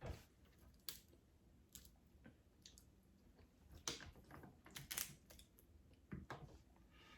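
Faint eating sounds: a person chewing seafood close to the microphone, with scattered short wet mouth clicks and crackles every second or so, the strongest about four and five seconds in.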